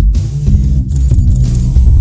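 Background music: a loud rock-style track with bass and guitar and a steady beat.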